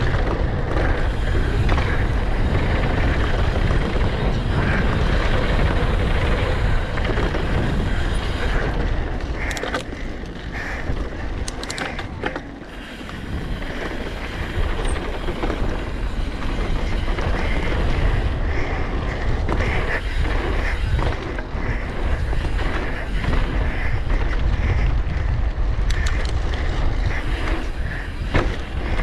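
Mountain bike descending a dirt trail: steady wind rush on the microphone with tyre rumble, and scattered clicks and rattles from the bike over rough ground, easing off briefly about halfway through.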